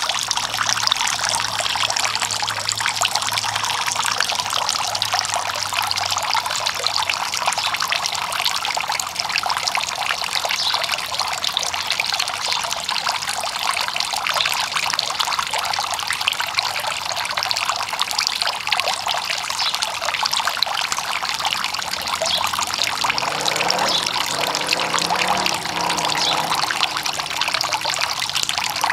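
Tiered garden fountain running: water spilling from the upper bowl into the basin, a steady trickling splash.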